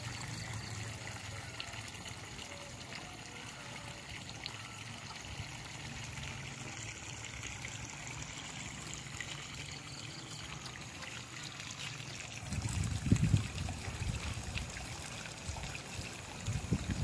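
Water from an irrigation hose running steadily onto the ground at the base of a pepper vine, with a few low rumbles in the last few seconds.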